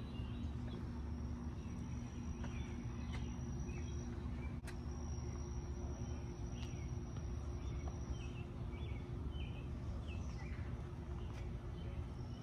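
Outdoor ambience: a steady low rumble with a faint hum, and birds chirping now and then.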